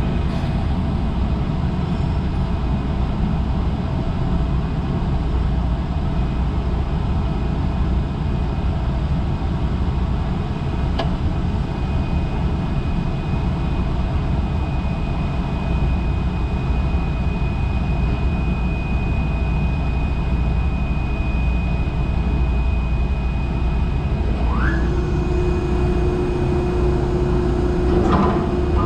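Heavy diesel engine running steadily, a deep continuous rumble. A thin high whine joins about a third of the way in, and near the end a pitch sweeps up and then holds as a steady hum.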